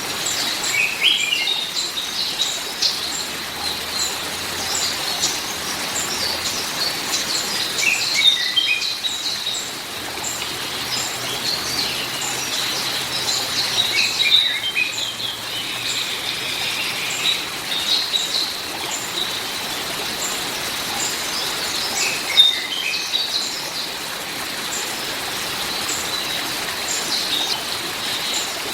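Songbirds chirping and twittering over a steady hiss of rain, with a quick run of falling chirps every several seconds.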